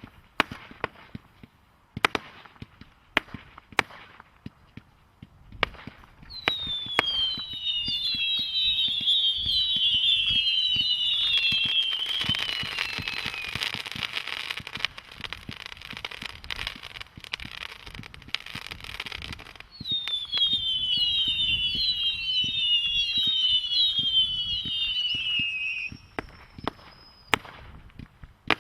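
Multi-shot firework cake firing: scattered single bangs, then about 6 seconds in a long dense volley of many whistles falling in pitch, running into a stretch of crackling, and a second whistling volley about 20 seconds in, ending in scattered bangs again.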